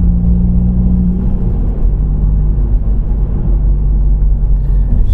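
Seat Leon Cupra Mk2's 2.0 TFSI four-cylinder engine running while the car drives, heard from inside the cabin over heavy road rumble. The engine note is steady, dropping slightly in pitch about a second and a half in.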